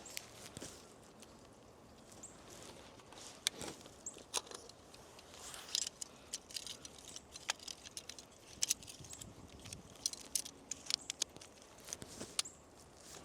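Faint handling sounds of 120 roll film being loaded into a Pentax 645N medium-format camera: scattered small sharp clicks and ticks of plastic and metal parts, with light rustling, coming thicker about halfway through.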